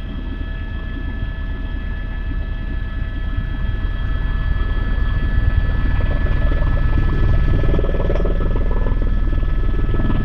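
Helicopter engine and rotor heard from inside the cabin on the approach to landing: a steady low rumble with a high steady whine running over it, growing slowly louder.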